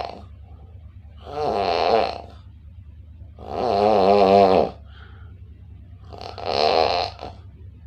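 A person snoring: three loud snores, each about a second long with a wavering, buzzy pitch, coming about every two seconds over a steady low hum.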